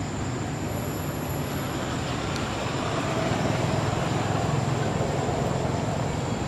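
Steady traffic rumble from a nearby road, swelling slightly a few seconds in as a vehicle passes.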